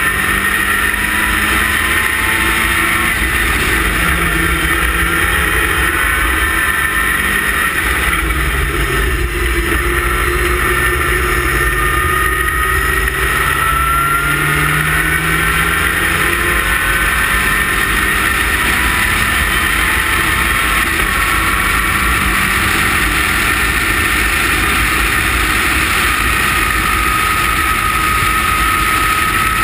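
Westfield sports car's engine at racing speed, heard from the open cockpit. The engine note climbs through the revs and drops back several times as the car accelerates and shifts or lifts, over a constant rush of wind on the microphone.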